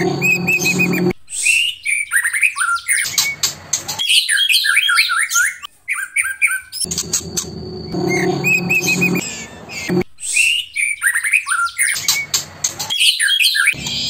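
White-rumped shama (murai batu) song: quick sweeping chirps and trills, the same run of phrases repeating about every seven seconds.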